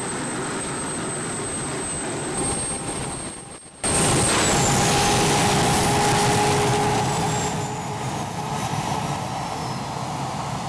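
QF-16 (converted F-16 fighter) jet engine running on the ground: a steady rushing noise with a high, steady whine. Just under four seconds in the sound cuts and comes back louder, with a high whine that slowly falls in pitch.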